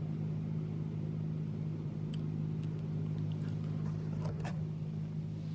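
Steady low machine hum made of several even tones, with a few faint light clicks and taps in the middle.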